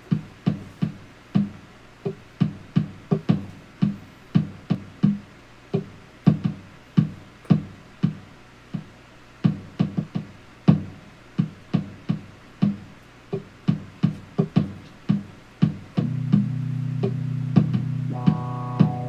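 Instrumental synth ambient music: a line of plucked notes, each dying away quickly, about two to three a second. About sixteen seconds in, a steady held chord comes in underneath, with higher sustained tones joining near the end.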